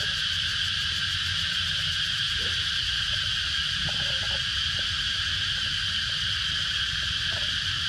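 Steady, unbroken insect chorus in two high pitch bands, with a low rumble underneath.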